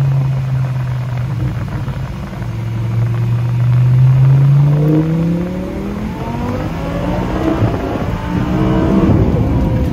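Twin-turbocharged Audi R8 V10 heard from inside the cabin, running steadily at first and then pulling hard at full throttle from about three seconds in, its note climbing in pitch through quick gear changes in the second half.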